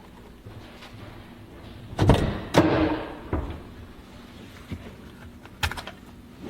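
Doors banging shut with heavy thuds: two loud ones about two seconds in, half a second apart, and a sharper knock near the end.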